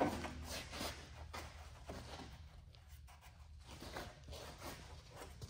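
Faint handling noises of gloved hands working at a truck's battery box: light scattered taps and rustles over a low steady hum.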